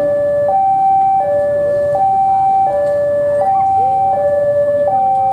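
Two-tone electronic railway warning alarm, alternating steadily between a higher and a lower note about every three-quarters of a second, warning of an approaching train.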